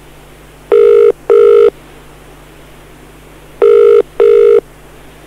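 British telephone ringing tone heard down the line while an outgoing call rings out unanswered: two double rings, each a pair of short steady tones, about three seconds apart.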